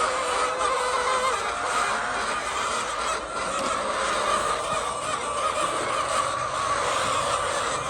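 A large flock of laying hens calling and clucking together as a steady, dense din.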